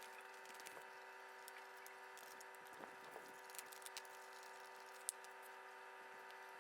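Near silence: a faint steady hum with scattered faint clicks and ticks, one sharper tick about five seconds in.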